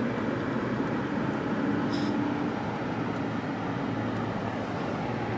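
Steady road and engine noise of a moving car, heard from inside the cabin, with a faint low hum in the first half and a brief click about two seconds in.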